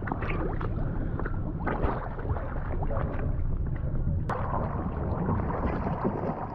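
River water sloshing and splashing around people wading chest-deep beside an inflatable boat, heard close up from the water's surface over a steady low rumble. There is an abrupt cut about four seconds in.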